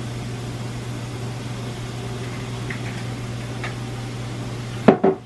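Steady hum and hiss from an induction cooktop with beets frying in oil in a cast iron pan, with a few light ticks. A short, louder sound comes about five seconds in.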